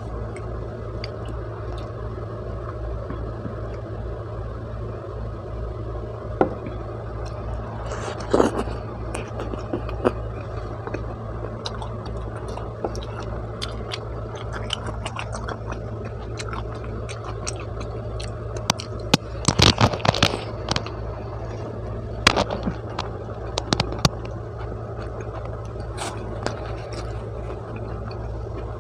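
Close-miked eating: bites and chewing of pizza, with scattered sharp crunches and clicks of the crust, the loudest cluster about two-thirds of the way through. A steady low hum runs underneath.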